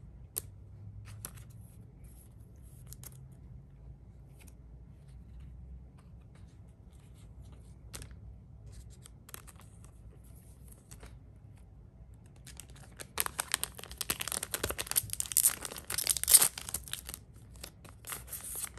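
Faint taps and slides of trading cards being handled. Then, about thirteen seconds in, a few seconds of loud crinkling and tearing from a foil Cardfight!! Vanguard booster pack wrapper.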